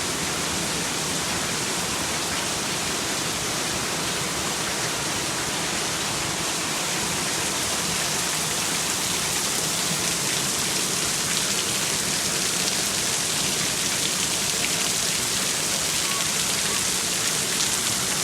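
Extremely hard, steady rain coming down, with heavy runoff pouring off the edge of a roof.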